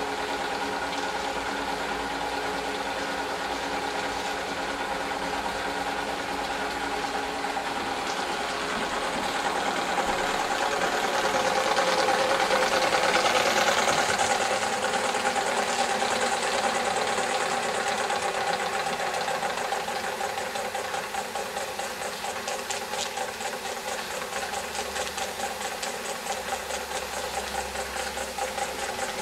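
Wilesco D22 model steam engine running steadily, its flywheel, belts and belt-driven line shafts and models going with a rapid, even mechanical beat. It grows louder for a few seconds midway, then eases back.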